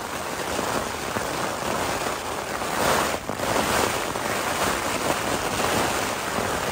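Heavy rain and strong wind beating on the fly of a Hilleberg Soulo tent, heard from inside: a steady, so-loud rush with a brief lull about three seconds in.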